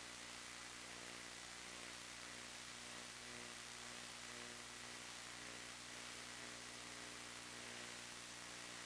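Steady static hiss with a faint low electrical hum and a thin high tone, unchanging throughout: the noise floor of an analog FPV video link's recording, with no clear sound of the aircraft itself.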